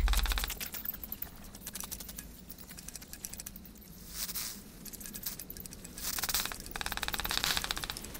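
A loud low rumble dies away in the first half second. Then comes the rapid, dry clicking and chittering of a stick insect creature crawling over the stone statue. It gets louder in a short burst about four seconds in and again from about six seconds until near the end.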